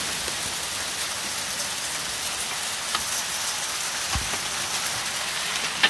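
Hailstorm: hail and rain pelting the lawn and deck with a steady hiss.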